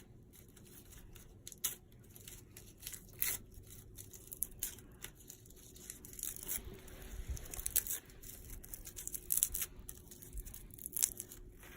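Dry pine cone being broken apart by hand, its scales snapping and crackling in irregular bursts.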